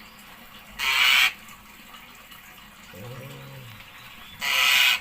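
A brood of jalak starling chicks giving two short, harsh, hissing begging calls, about a second in and again near the end.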